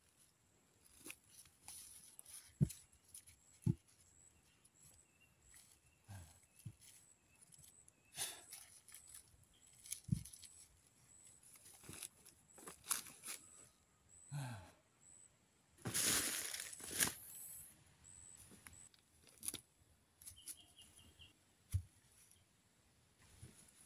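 Footsteps and rustling in dry leaves and grass, with scattered clicks and a few dull thumps, and a longer, louder crunching rustle about two-thirds of the way through.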